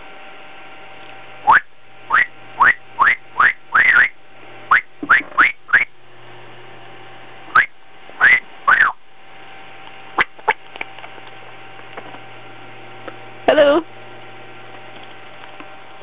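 African grey parrot whistling a quick run of short rising whistle notes, about ten in four seconds, then two more. A couple of faint clicks follow, and later one louder, fuller call.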